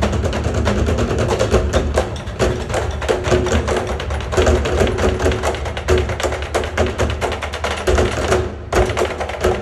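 Show music with busy percussion: many quick, sharp taps and thuds over a steady low bass. It drops out briefly about a second before the end.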